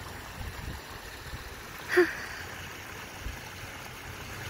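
Steady water noise of a pond's edge, water trickling and moving over rocks, with a low rumble. About two seconds in comes one brief, short pitched sound, the loudest moment.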